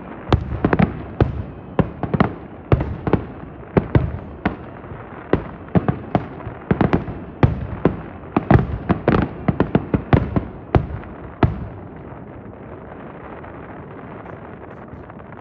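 Fireworks finale: shells bursting in rapid succession, several sharp bangs a second. The bangs stop about three quarters of the way in, leaving steady background noise.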